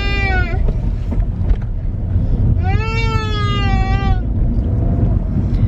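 Steady low road rumble inside a moving car's cabin. A toddler gives one long high-pitched call about three seconds in, and another call trails off just at the start.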